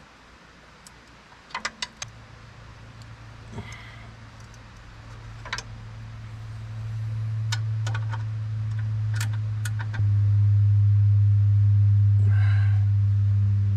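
Scattered metallic clicks of a wrench working the 17 mm brake caliper bolts. Under them runs a steady low mechanical hum that grows louder and steps up suddenly about ten seconds in; this hum is the loudest sound.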